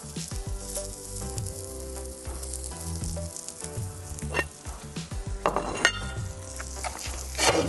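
Sizzling and crackling from a hot wood-fired pizza oven, over background music with held notes. A few sharp clicks come a little past the middle.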